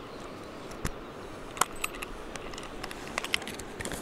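Scattered light clicks and rustles of handling over a steady, quiet outdoor background.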